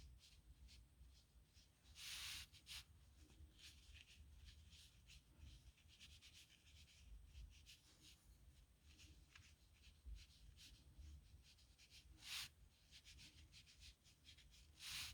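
Faint scratching of a metal dip-pen nib on paper in many short strokes, as signatures are written. Louder swishes come three times: about two, twelve and fifteen seconds in.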